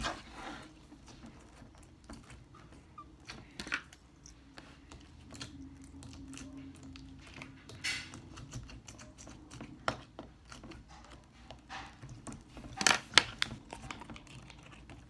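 Slime being squished and pushed down into a tall plastic tube, with irregular small clicks and taps from handling the plastic tube and its lid; a few sharper clicks near the end are the loudest.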